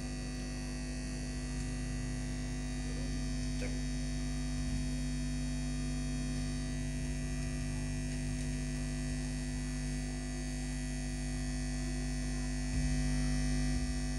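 Steady mains hum from a home PA amplifier chain through its speakers: a low electrical buzz with many overtones while no music plays. It gets slightly louder near the end.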